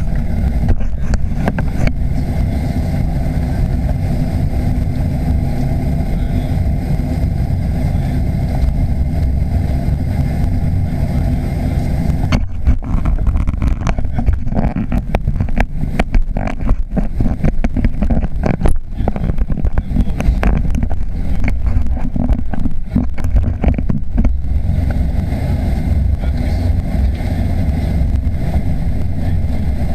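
Cabin sound of a Boeing 737-800 taxiing: the CFM56 engines and the rolling of the airframe make a steady low noise. Through the middle stretch it is broken by a run of knocks and rattles from the cabin and gear.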